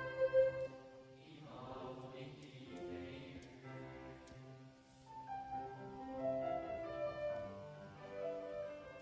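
Music: a sung note with vibrato ends about half a second in, then an instrumental passage of held notes follows.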